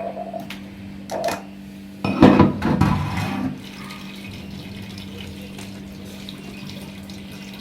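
Kitchen tap running water into the sink during washing-up, louder and splashier for about a second and a half near the two-second mark, then settling into a steady flow. A steady low hum sits underneath.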